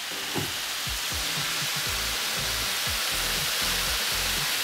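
Sauce sizzling on a hot flat-top griddle over cooking broccoli: a steady frying hiss and steam that builds over the first second or two, then holds.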